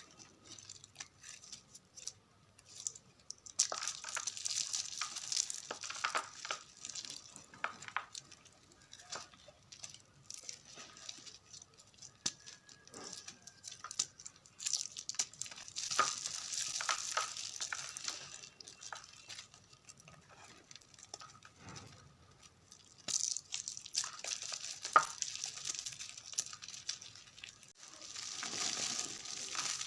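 Blocks of gym chalk mixed with confetti being crumbled by hand: dry crackling and crunching in three long bursts, with quieter pauses of scattered small clicks between them.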